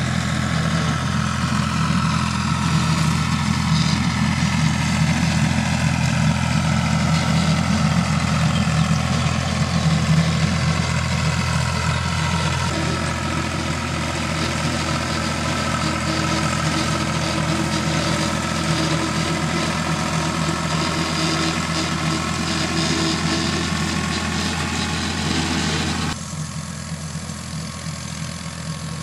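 Ford/New Holland 3930 tractor's 3.3-litre three-cylinder diesel engine running steadily under load while pulling a rotary cutter through grass. A higher whine drifts slowly in pitch above the engine note. The sound drops in level near the end.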